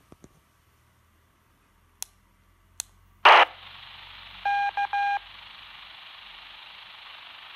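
Clicks of a Baofeng BF-88E handheld radio's key, then the radio's speaker opens with a loud burst of static and a steady hiss as the repeater answers; about a second later three short beeps sound over the hiss.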